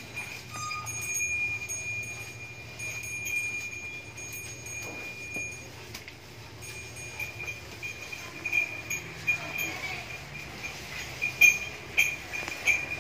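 Light metallic chiming: a steady high ringing tone for the first half, then separate tinkling strikes, the sharpest ones near the end.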